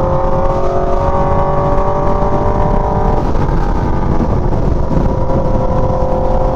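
Aprilia Tuono V4 motorcycle's V4 engine and exhaust running while riding, under heavy wind rush on the helmet mic. The engine note climbs slowly for about three seconds, breaks up briefly, then holds steady.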